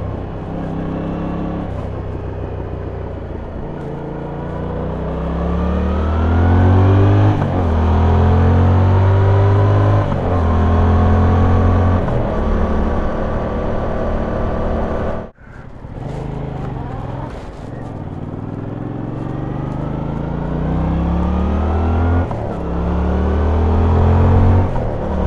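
Yamaha MT-07's 689 cc parallel-twin engine on its stock exhaust, accelerating through the gears. Its note climbs, falls back at each upshift, then climbs again, over and over. The sound cuts out for an instant about halfway through.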